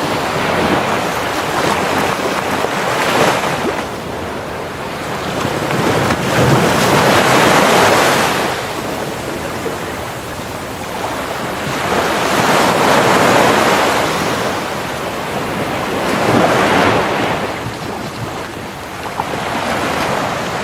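Ocean surf breaking on a beach: waves wash in one after another, swelling and fading four times, about every four to five seconds.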